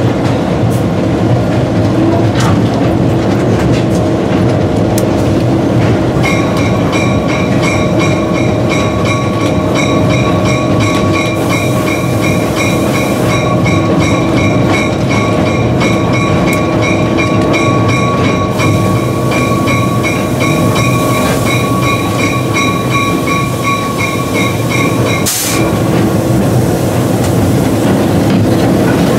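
Inside the cab of an EMD GP38 diesel-electric locomotive under way: its two-stroke 16-cylinder diesel engine runs steadily under the rumble of the wheels on the rails. From about six seconds in, a bell rings in quick, even strokes for about twenty seconds, then stops.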